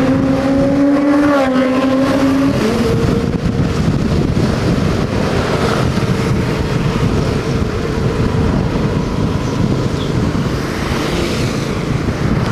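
Motorcycle riding along: wind rushing over the microphone with a steady engine hum. The engine note climbs slightly over the first couple of seconds, then holds at an even pitch.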